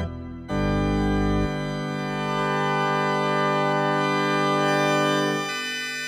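Clavia Nord Electro 5D stage keyboard playing a drawbar-organ sound in sustained chords. There is a short drop right at the start, then one long held chord whose low bass notes drop out about a second and a half in, and the chord changes near the end.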